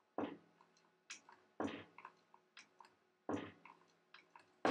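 A 3 mm high-speed-steel tool stroked up and down by hand through a hole in a die blank, shaving metal from the corners to form a square hole: a handful of short scraping clicks at uneven intervals, each stroke taking a little metal off.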